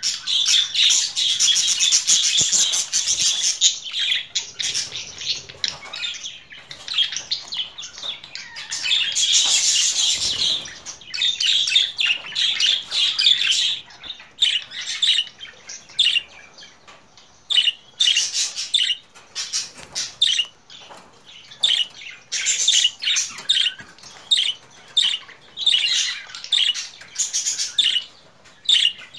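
Budgerigars warbling and chattering in rapid, high-pitched runs, breaking after about the middle into shorter separate chirps with brief pauses between them.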